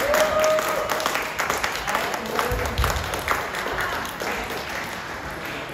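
Spectators clapping after a point in a table tennis match, with a voice calling out at the start; the clapping thins and fades over the next few seconds, echoing in a large sports hall.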